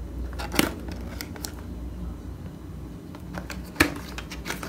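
A small cardboard box being opened by hand: its flap and inner tray scrape and click in a few short, sharp sounds, the loudest a little before the end.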